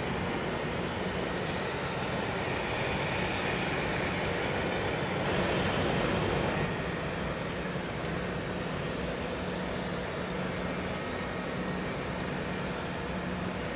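Steady engine drone with a low hum, swelling briefly about five seconds in.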